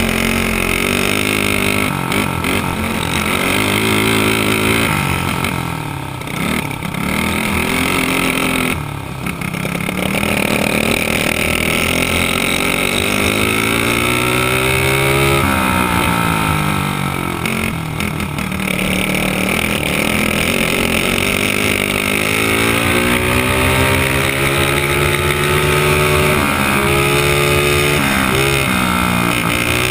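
Dirt kart engine heard onboard while racing, its pitch repeatedly dropping as the driver lifts for a corner and climbing again as the throttle is opened.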